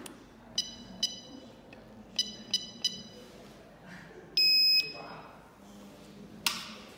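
Electric wheelchair joystick controller beeping as its buttons are pressed: five short electronic beeps in the first three seconds, then one louder, longer beep of about half a second. A sharp click follows near the end.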